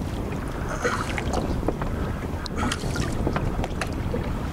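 Wind rumbling on the microphone over water slapping against a boat's hull, with a few small splashes as a released musky kicks at the surface and swims off.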